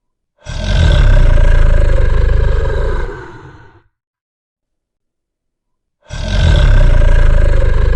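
Drogon's dragon roar sound effect, played twice: a deep, rumbling roar of about three seconds that fades out, then after a short silence the same roar again.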